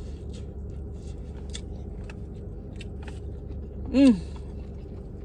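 Eating sounds: scattered small clicks and taps of chewing and utensils over a steady low hum, with a short vocal 'mm' falling in pitch about four seconds in.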